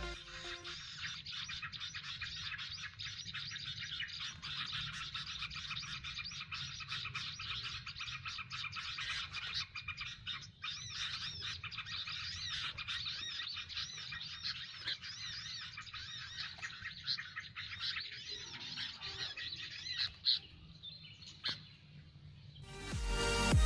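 Many small birds chirping and twittering in a dense, continuous chatter of quick repeated calls, thinning out near the end.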